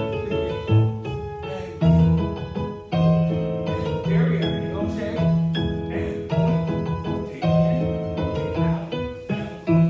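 Piano music with a steady beat, playing as the accompaniment to a ballet barre exercise.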